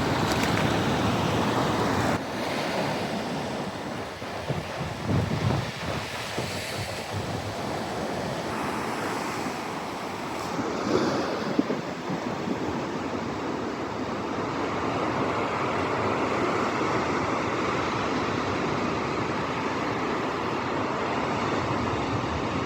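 Ocean surf breaking and washing up the beach, a steady rushing wash, with wind buffeting the microphone in a few gusts.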